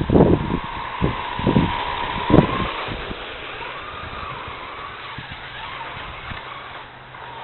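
Electric motor of a radio-controlled car whining, its pitch bending up and down as the throttle changes. Several loud low thumps and buffets fall in the first two and a half seconds.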